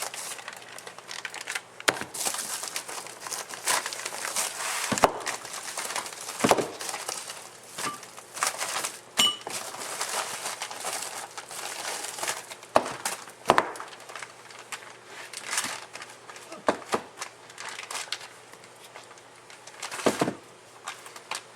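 Packaging crinkling and rustling as tools are handled and unpacked, with scattered sharp knocks and clicks.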